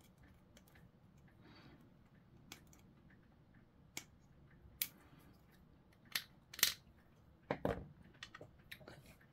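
Small hard-plastic model kit parts being handled and dry-fitted together: scattered light clicks and taps, a few sharper ones in the second half and a duller knock on the work surface near the end.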